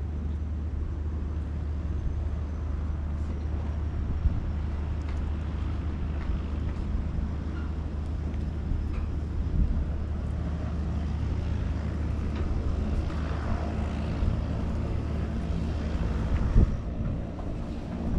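Seaplane propeller engines droning steadily: a low, even hum with a few steady tones above it. A single sharp knock sounds near the end.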